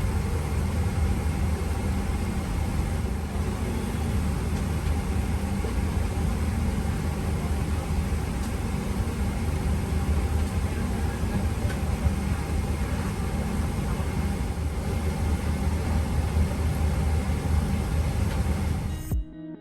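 Steady engine and airflow noise inside the cabin of a Boeing 777-200ER airliner, cutting off suddenly near the end.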